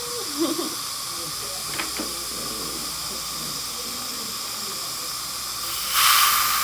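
Dental suction hissing steadily in the mouth, then about six seconds in a dental air-water syringe starts spraying the teeth with a much louder hiss.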